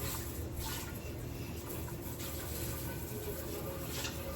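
Kitchen tap running water into a pot as it is rinsed at the sink, a steady splashing rush.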